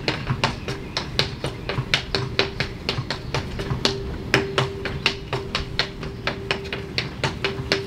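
Tap dancing: quick, uneven runs of sharp taps from shoes striking a stage floor, several a second, with music under them.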